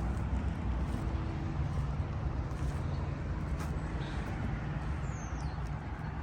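Steady low rumble of a vehicle running, with a faint hum. About five seconds in, a faint high chirp falls in pitch.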